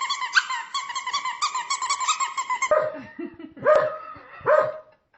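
A dog's rapid, high-pitched yipping, then about halfway through a switch to lower dog barks, the two loudest near the end.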